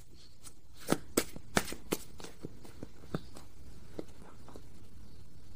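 A deck of tarot cards being shuffled by hand: a quick run of sharp card snaps and taps, loudest in the first two seconds and then fainter and sparser.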